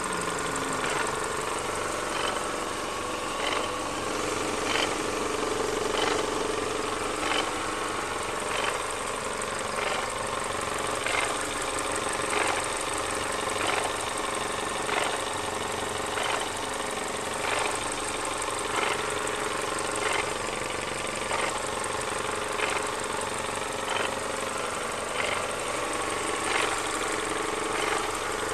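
Volvo S40's 1.8-litre 122 hp petrol engine running steadily, with a sharp click or knock repeating about every 1.3 seconds. It is a strange extraneous noise whose cause the owner cannot identify.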